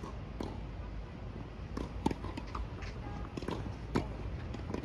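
Tennis balls bouncing and players' footsteps on an outdoor hard court between points: scattered sharp knocks, loudest about two seconds and four seconds in.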